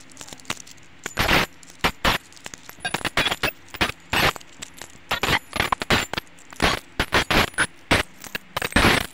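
Metal coins dropped one after another from a hand onto a pile on a cloth, clinking against each other in an irregular run of clicks. The loudest clinks come about a second in and at the end.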